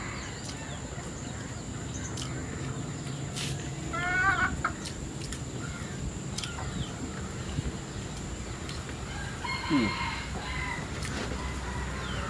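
Village chickens (ayam kampung) calling: a rooster crows briefly about four seconds in, and more clucking and crowing comes near ten seconds, with a few light clicks between.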